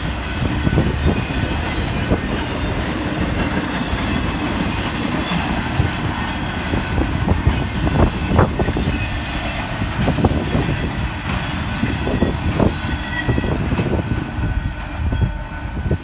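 Intermodal freight train of double-stack containers and trailers on flatcars rolling past: a steady rumble of steel wheels on rail, broken by scattered sharp clacks, easing a little near the end as the last cars go by.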